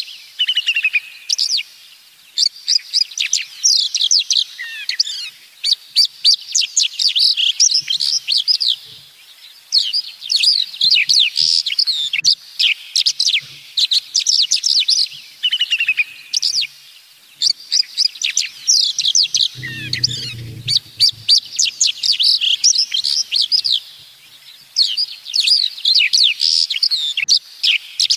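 Songbirds singing, with rapid runs of high chirps that repeat without a break. A short low sound stands out once, about twenty seconds in.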